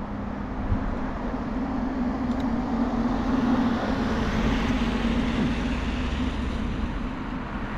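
A motor vehicle passing on the road, its tyre and engine noise swelling to its loudest about three to four seconds in, then easing off.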